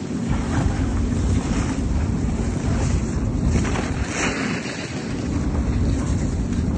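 Nuclear icebreaker Sibir's hull breaking through sea ice: a steady low grinding rumble with scattered sharp cracks, and wind buffeting the microphone.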